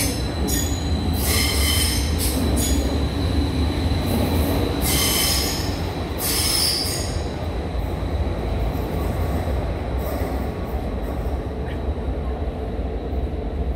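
Athens Metro Line 1 electric train running through the station with a steady low rumble and a thin high whine. Several bursts of high-pitched wheel squeal come in the first half, and it settles to a quieter rumble after that.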